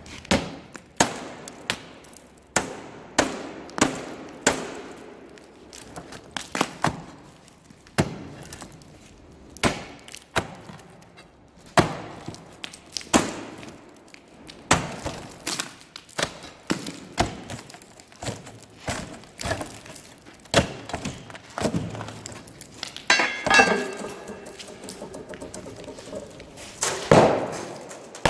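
Irregular heavy blows, about one or two a second, striking the back panel of an old safe and breaking up its fireproofing lining. A brief ringing sound comes about 23 seconds in.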